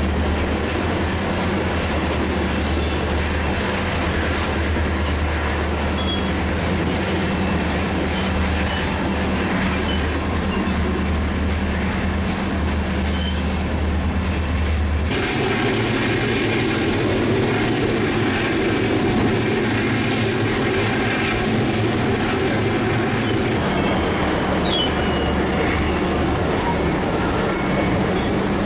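Passenger train rolling along the track behind its diesel locomotives, with steady wheel-on-rail noise and rumble. The sound changes abruptly about halfway through and again near the end.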